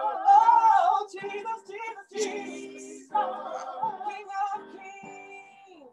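Voices singing a slow worship chant in long held notes that rise and fall, with the loudest phrase in the first second and the singing fading toward the end.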